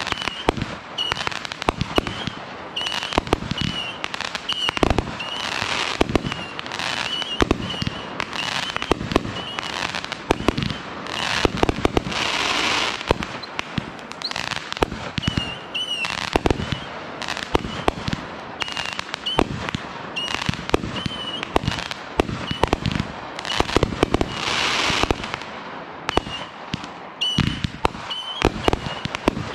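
Consumer aerial fireworks going off in quick, irregular succession: sharp bangs of shells launching and bursting, with stretches of crackling about twelve seconds in and again near twenty-five seconds.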